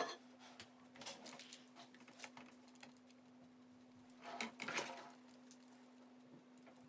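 Silicone spatula spreading thick cake batter over baking paper in a baking tray: soft, intermittent scraping and smearing, louder about four seconds in, after a sharp click right at the start. A steady low hum runs underneath.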